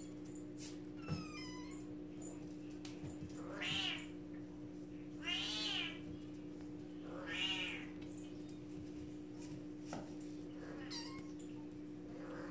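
Kitten meowing: three loud, rising-then-falling meows about two seconds apart in the middle, with fainter high calls near the start and near the end.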